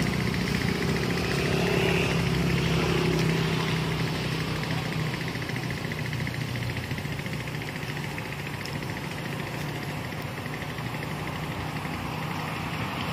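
An engine idling nearby, a steady low hum that fades after about four seconds, with voices in the background.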